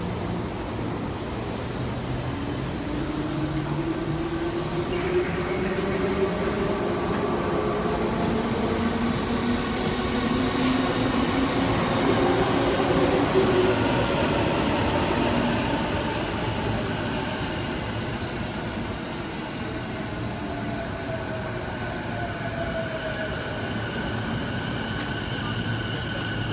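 Inside the cabin of an electric train in motion: motor whine rising in pitch as the train gathers speed, over a steady running rumble, louder around the middle. Near the end a steady high-pitched tone sets in, like wheels squealing.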